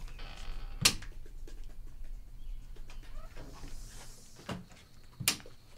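A house's front door being opened and shut: a sharp knock of the latch about a second in, and a second knock near the end as the door closes, with a few lighter taps between.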